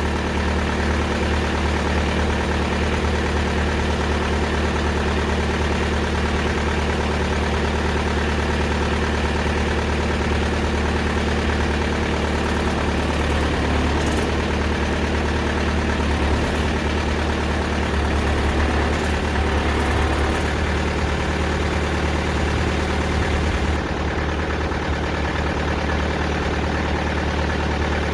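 Diesel engine of a TimberKing 2000 band sawmill running steadily while the band blade saws through an ash log. The higher hiss drops away about 24 seconds in.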